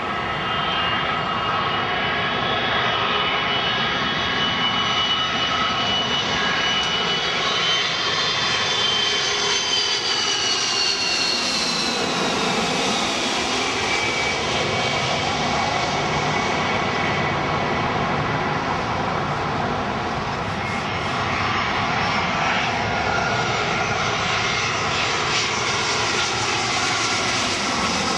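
Jet airliners on final approach passing low overhead, their engines running steadily with a high whine that falls in pitch as one goes by, about a third of the way in.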